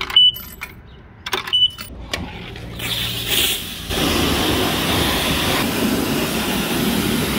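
Coins dropping into a self-serve car wash coin box, with a few clicks and two short high beeps. From about three seconds in, a high-pressure wash wand sprays water hard and steadily against an aluminium boat hull and its trailer.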